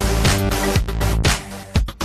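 Electronic background music with a regular beat and deep bass.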